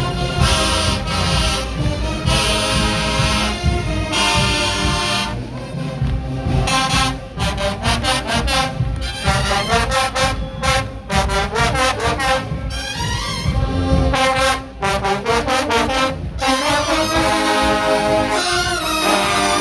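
A marching band playing loudly, its brass section carrying the tune in short, punchy phrases over a steady drum beat.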